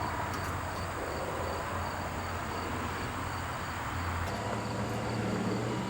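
Insects, likely crickets, chirping in an even repeating pattern over a steady low background hum.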